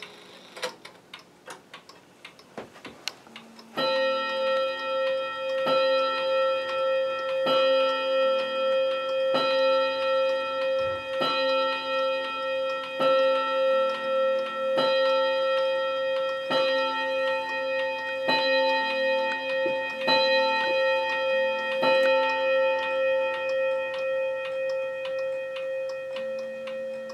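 Wall clock striking the hour: a few ticks, then about a dozen slow strokes on a bell roughly two seconds apart, each ringing on into the next, consistent with the clock striking twelve.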